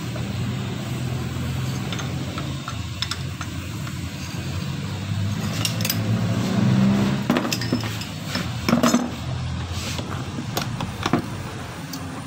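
Metal clinks and knocks of a steel jaw puller and a car AC compressor's clutch pulley being worked off and set down, scattered and irregular, loudest past the middle. A steady low hum runs underneath.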